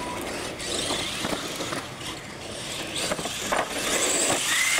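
Two radio-controlled monster trucks racing on concrete: motors whining and tyres rolling, with several sharp knocks as they run over the lane's ramps, and a rising whine near the end.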